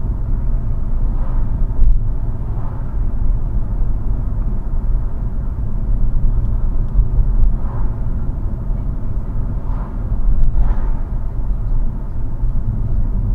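Steady low rumble of a car driving at about 28 mph, engine and tyre noise heard from inside the cabin.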